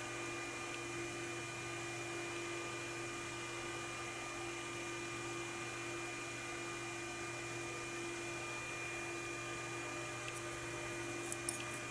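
Steady electrical hum with a few constant tones, unchanging throughout.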